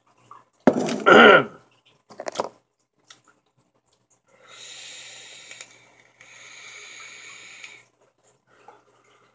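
A brief vocal sound from the man about a second in, with a falling pitch, then a shorter one. Later come two long, even hisses: a draw on a Horizon Tech Arctic sub-ohm tank, air rushing through its airflow vents, then the exhale of the vapor.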